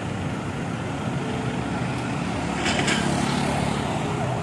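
Street traffic: a motor vehicle's engine running close by as a steady rumble that gets a little louder about three seconds in, with a brief sharper noise at that point.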